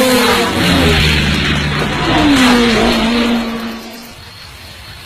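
Race-car engine sound effects passing by, their pitch falling, twice, then fading out about four seconds in.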